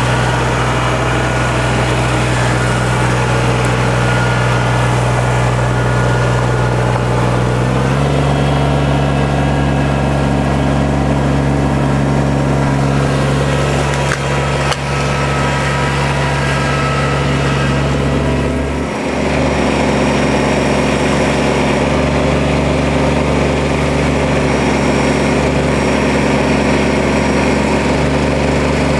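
Kubota compact tractor's diesel engine running steadily, its pitch shifting slightly about eight seconds in, with a brief dip a little past the midpoint.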